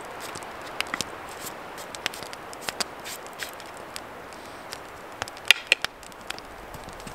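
Knife whittling a wooden spoon: irregular short, sharp cutting clicks as the blade takes off shavings, the loudest two about five and a half seconds in, over a steady hiss.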